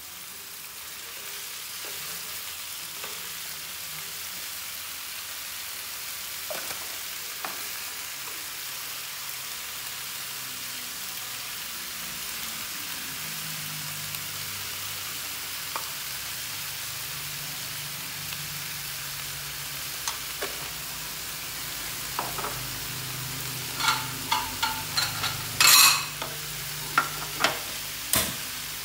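Leafy greens sizzling steadily as they stir-fry in a pan over a gas flame. Near the end comes a run of sharp clicks and knocks.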